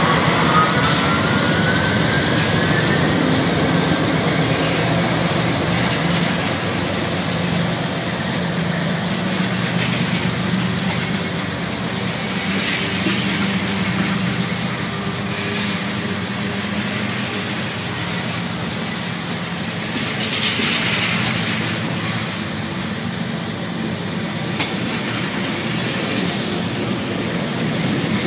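Freight train rolling past at close range: the trailing diesel locomotives, then tank cars and lumber flatcars, with a steady rumble of wheels on rail and scattered clicks at the rail joints. A faint rising whine comes in the first few seconds.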